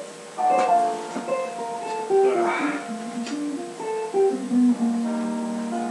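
Guitar music with plucked notes and strums.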